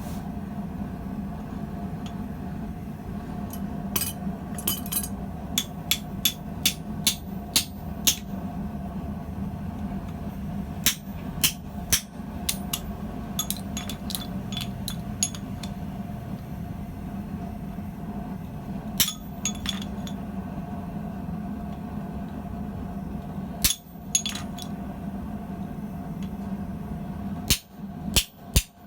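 Blacksmith's hammer striking hot steel tubing on an anvil, in several runs of ringing blows with pauses between, while forging a pintle hinge. A steady low hum runs underneath and briefly cuts out near the end.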